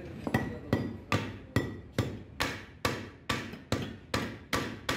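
Hand hammer striking steel rivets on a truck brake shoe in a steady rhythm, about two and a half blows a second, each with a short metallic ring. The rivets are being hammered over to fasten a new friction lining to the shoe.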